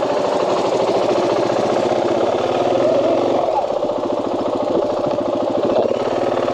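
KTM 500 dual-sport motorcycle's single-cylinder four-stroke engine running with a rapid, even firing beat as the bike pulls away and rides off.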